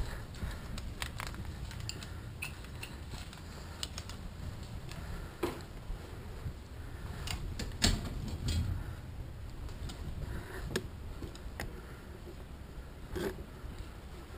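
An airsoft player's gear and rifle rattling with footsteps on a ship's deck: scattered clicks and light knocks, the sharpest about eight seconds in, over a low rumble.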